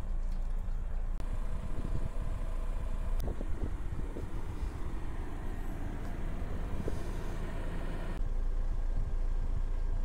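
BMW 220i's B48 2.0-litre turbocharged four-cylinder engine and exhaust running at steady low revs, a continuous low exhaust note. The sound changes abruptly about one second in and again about eight seconds in.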